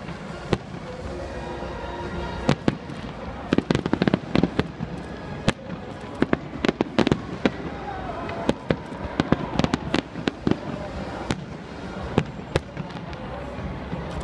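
Fireworks display: aerial shells bursting in a string of sharp bangs and crackles, densest about four and seven seconds in, over background music.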